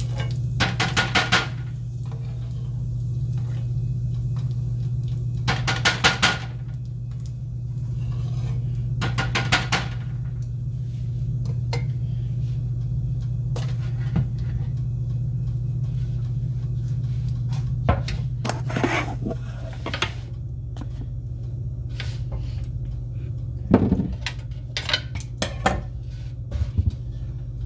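A metal mesh skimmer clinking and rattling against a nonstick frying pan in three quick bursts within the first ten seconds, followed later by scattered lighter clicks and knocks, over a steady low hum.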